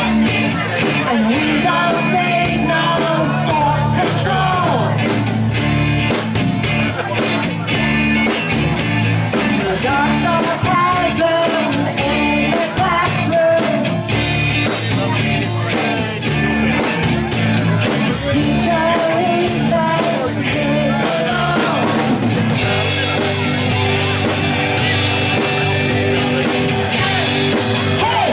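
Live rock band playing with a lead singer over electric guitars, bass and drums. The singing stops a little over 20 seconds in and the band plays on instrumentally.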